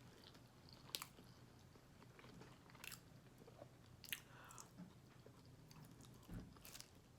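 Faint chewing and biting on food, with a few short, sharp crunches or clicks: one about a second in, others near three and four seconds in, and a couple near the end.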